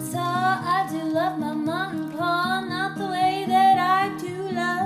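Background music: a singing voice carrying a slow melody over plucked acoustic guitar.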